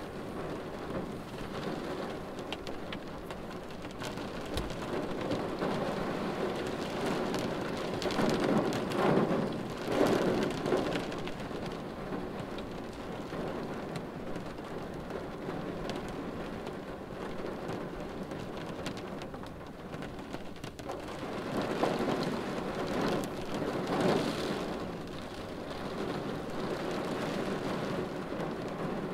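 Steady rain drumming on a car windshield, heard from inside the car. The rain swells louder twice, about eight seconds in and again about twenty-two seconds in.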